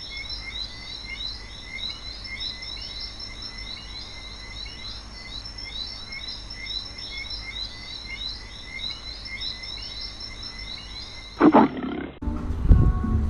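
Birds chirping over and over above a steady high insect drone, then a brief loud animal call about eleven and a half seconds in, with music starting just after it.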